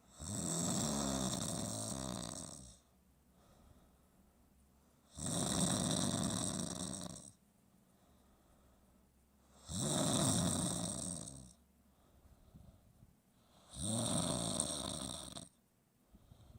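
Loud snoring: four long snoring breaths, each about two seconds, coming roughly every four seconds, with a rough, rattling low buzz under a hissy rush of air.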